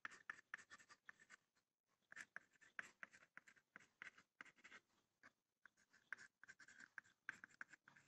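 Faint chalk scratching on a blackboard as block letters are written in quick short strokes, with two brief pauses between words.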